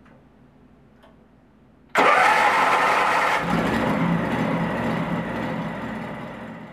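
18 hp Kawasaki engine on a propane floor burnisher starting up about two seconds in: a sudden burst of cranking that catches after about a second and a half and settles into a steady run, warming the oil. The sound fades slowly toward the end.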